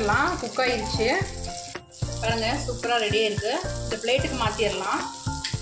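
Mutton seekh kebabs frying in shallow oil in a nonstick pan, giving a steady sizzle. Louder background music with a singing voice and a regular beat plays over it, and everything drops out briefly about two seconds in.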